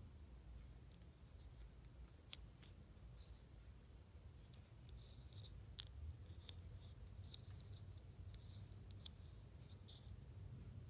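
Faint scattered clicks and short crinkly rustles of packaging and small plastic pieces being handled, over a low steady hum. The sharpest click comes a little over two seconds in.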